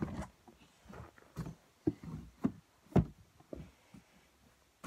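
A series of soft knocks and thumps, about one every half second, the loudest about three seconds in: a person shifting about on a bed and handling things.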